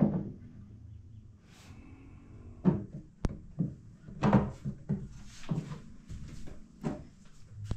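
A trim board being pressed and knocked into place along the top of a built-in wooden wardrobe: a series of irregular wooden knocks and bumps, with one sharp click about three seconds in.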